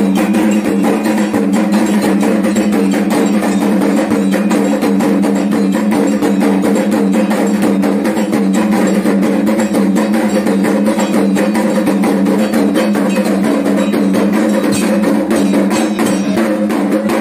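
Fast, unbroken kendang drumming for a Dayak belian healing ritual, with a steady ringing tone sounding underneath.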